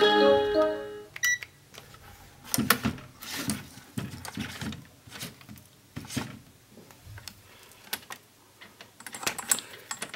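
A short electronic chime of a few stepped notes at the very start, from the Samsung LCD TV powering on. A single short beep follows about a second in, then scattered clicks and taps as a multimeter and its probes are handled on the TV's circuit board.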